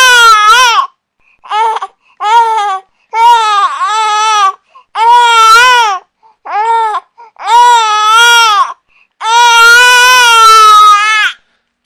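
Infant crying loudly in a run of wailing cries, most about a second long with short breaths between, the last one drawn out for about two seconds.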